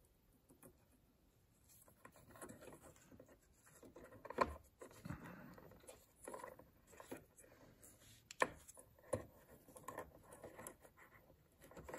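Faint fumbling with XT-type plastic power connectors and their cables: scattered clicks and taps with rubbing and rustling in between, the sharpest click about four seconds in.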